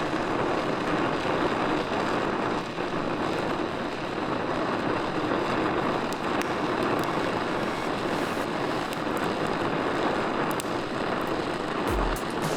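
Dillon oxy-acetylene welding torch flame hissing steadily while fusion-welding steel, with scattered light crackles.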